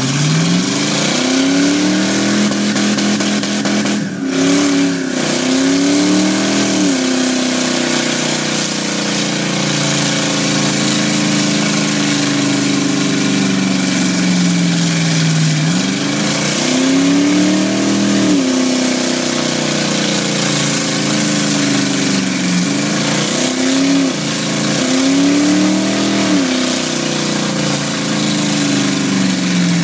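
Car engine revving hard through a long burnout, with the tyres spinning and smoking on wet ground. The engine comes up suddenly at the start, then its revs rise and fall several times over a steady hiss of tyre and exhaust noise.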